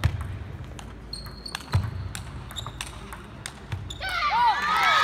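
Table tennis rally: the ball clicking off rackets and table, with heavy thuds of the players' footwork about every two seconds. About four seconds in the rally ends and voices shout and cheer, rising into loud cheering and applause.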